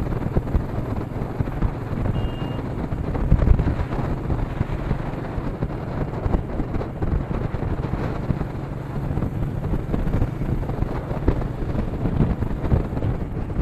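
Royal Enfield Meteor 350's single-cylinder engine running steadily while riding, with wind rushing over an action camera's built-in microphone.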